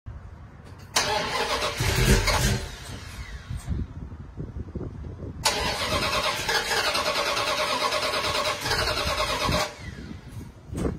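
Cold start of a 1975 Dodge Ramcharger's engine: two loud spells of starting, a short one about a second in and a longer one of about four seconds from about five and a half seconds in, with quieter engine sound between them.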